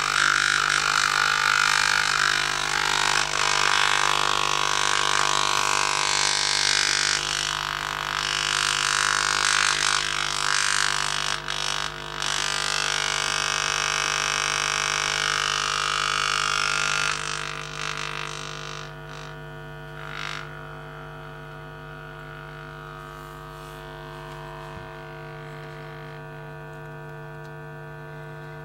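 Freshly refoamed Paradigm Atom woofer driven hard by an audio oscillator with a steady low tone, a buzzy drone that keeps the cone moving and centred while the new surround's edge glue sets. A harsh, noisy buzz rides on top for the first two-thirds and drops away about 17 seconds in, leaving the plain low drone.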